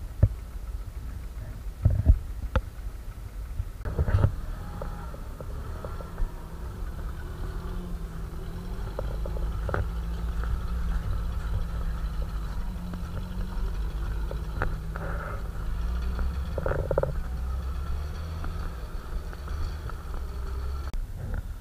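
Off-road vehicle engine running at low revs as a UAZ-469 drives along a snowy track: a few sharp knocks in the first four seconds, then a steadier engine drone from about eight seconds in.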